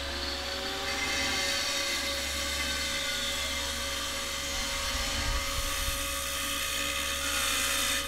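Angle grinder with a diamond disc cutting marble: a steady, high-pitched grinding hiss that cuts off suddenly at the end.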